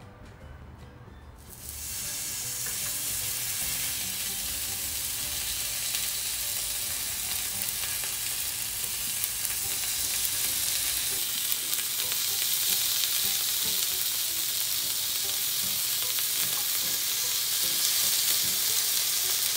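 Raw lamb rib chops sizzling on a hot tabletop grill plate. The sizzle starts suddenly about a second and a half in as the first chop goes down, then runs steadily and grows a little louder as more chops are laid on.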